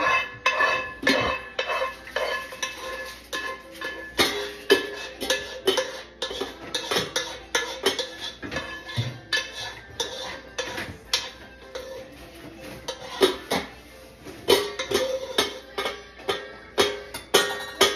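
Spoon and cookware clinking and knocking many times, with music playing underneath.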